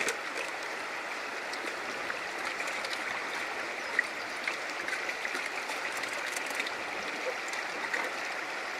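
Shallow river water rushing steadily over rocks, with a few small knocks and splashes.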